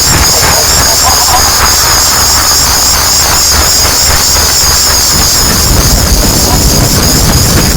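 Loud, heavily distorted, effects-processed song audio: a harsh, steady, noisy blare with a strong hiss and no clear melody.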